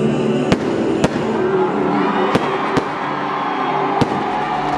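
Fireworks going off: about five sharp bangs spread over a few seconds, with sparks crackling between them.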